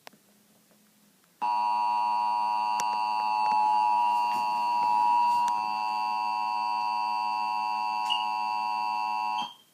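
Emergency Alert System attention signal: a loud, steady two-tone alarm that starts abruptly about a second and a half in, holds for about eight seconds, and cuts off just before the end. It announces the tornado warning message that follows.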